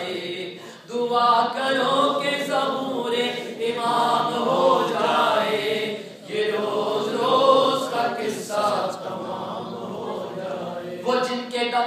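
Unaccompanied chanting of an Urdu devotional poem, voices sung in long phrases with short breaks about a second in and about six seconds in.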